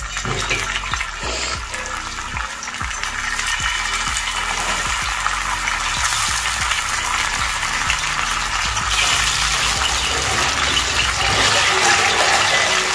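Masala-coated anchovies (netthili) sizzling and crackling in hot oil on a dosa griddle as pieces are laid in one after another. The frying grows steadily louder as more fish go into the oil.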